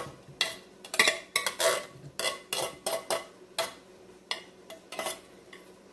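A metal spoon scraping and knocking inside a tin can of kidney beans, spooning the beans and liquid into a blender jar: a quick irregular run of clinks and scrapes that thins out near the end.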